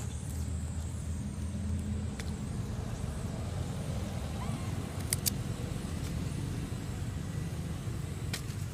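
Steady low outdoor background rumble, with a faint steady high-pitched tone above it and a few soft clicks, one about two seconds in, a pair about five seconds in and one near the end.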